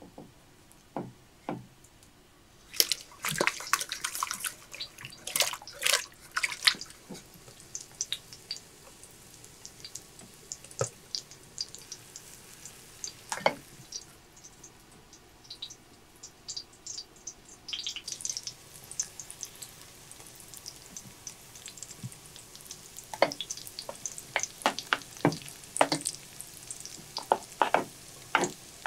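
Kitchen work: scattered clicks, clatter and watery splashes, then, from about two-thirds of the way in, food frying in hot oil with a steady sizzle and crackling.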